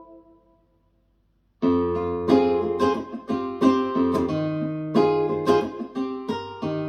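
Music played through a KEF iQ1 bookshelf speaker: the last notes of one track die away, and after about a second of silence a new track starts with plucked guitar notes.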